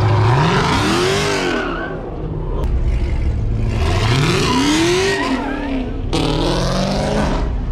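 Muscle-car V8 engines revving hard as the cars pull away. The engine pitch climbs and falls twice, with a hiss of exhaust and tyre noise over it, and the sound breaks off abruptly about six seconds in.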